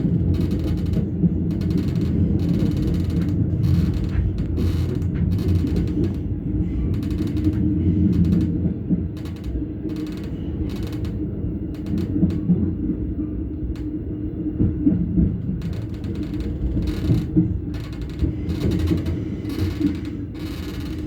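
Inside a Stadler GTW diesel railcar running along the line: a steady low rumble of engine and wheels on rail, broken by frequent irregular clicks and creaks from the running gear and body.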